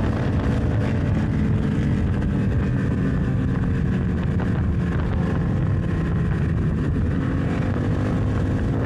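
1998 Honda XR650L's air-cooled single-cylinder engine running steadily under way at road speed.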